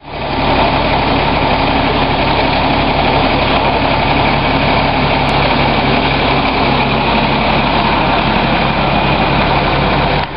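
Fire truck engine idling steadily, a constant low hum that fades in at the start.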